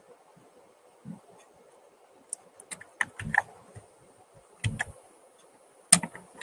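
Computer keyboard keys clicking in short, irregular clusters with quiet gaps between, starting a little over two seconds in.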